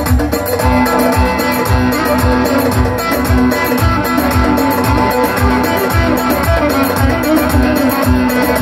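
Amplified electric bağlama (saz) playing a Turkish folk dance tune over an electronic keyboard's steady drum-machine beat; instrumental, no singing.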